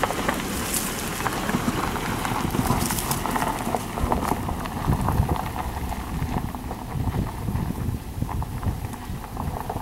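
Jeep Wrangler passing on a dirt track: engine running and tyres crunching and clattering over dirt and stones, easing off over the second half as it drives away.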